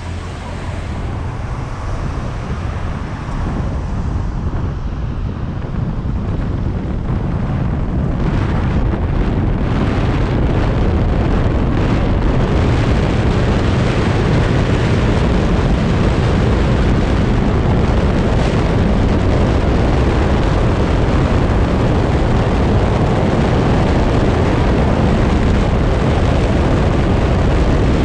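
Wind and road noise from a moving vehicle, buffeting the camera microphone: a dense low rumble with hiss above it. It grows louder over the first eight seconds or so, then holds steady.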